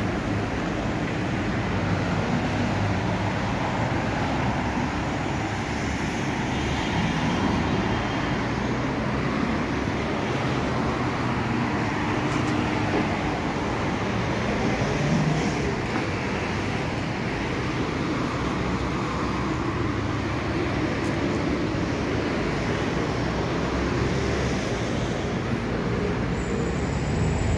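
Steady road traffic noise: cars and buses running past on a nearby street, an even background rush.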